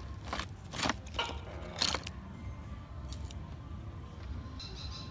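Raw oyster half-shells clacking and scraping against each other and the ice on the tray as one is picked up: four or five short, crunchy scrapes in the first two seconds, then a couple of faint ticks.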